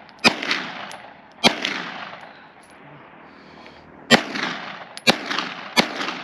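Five gunshots fired one at a time at targets, each followed by a long echo dying away, unevenly spaced with a pause of over two seconds in the middle.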